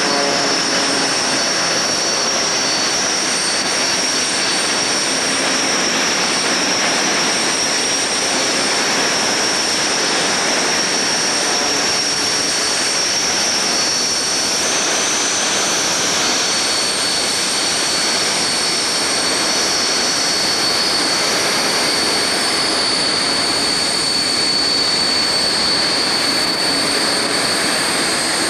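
Steady jet-engine noise: an even rush with a high whine on top that shifts pitch slightly around the middle and again near the end.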